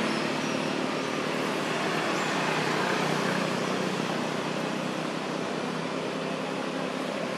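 Steady background noise of motor traffic, a continuous rushing hum that eases off slightly over the first couple of seconds.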